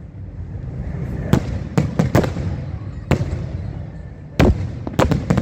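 Aerial firework shells bursting overhead: about eight sharp bangs at uneven intervals, some in quick pairs and threes, the loudest a little past four seconds in, over a low rumble.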